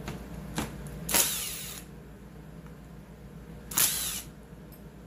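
Two short bursts of a cordless drill/driver, each spinning up and back down, backing screws out of the chainsaw's housing. There is a small click about half a second in.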